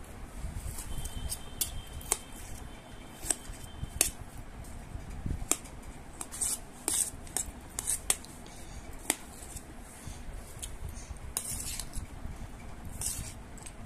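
Steel spoon clinking and scraping against a stainless steel plate while scooping up watermelon pieces: a run of irregular sharp clinks, some of them ringing.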